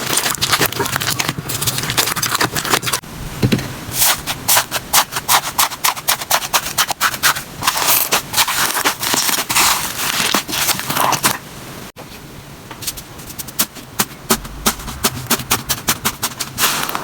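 Slime being squeezed and poked by hand: dense, rapid crackling and popping clicks. The texture changes abruptly about 3 seconds and 12 seconds in.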